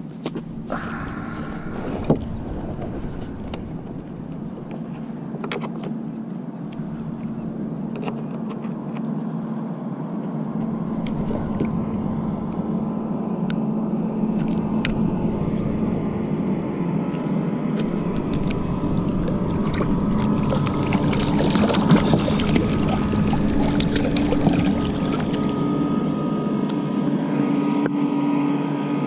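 Motorboat engine running nearby, a steady hum that grows slowly louder, with a few sharp small clicks over it.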